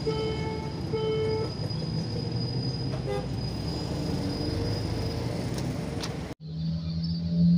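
Road traffic crossing a railway level crossing, cars and motorbikes driving over the rails. A horn-like beep sounds twice in the first second and a half. The sound cuts off abruptly near the end and gives way to a steady low tone.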